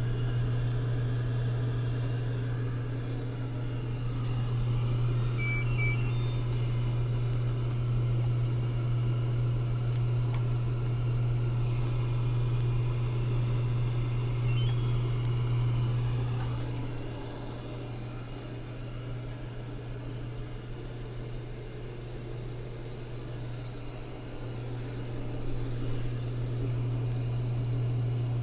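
A laundry machine from a stacked washer-and-dryer set running: a steady low motor hum that switches on suddenly, eases off for several seconds about two-thirds of the way through, then comes back. A couple of faint short beeps sound about five seconds in.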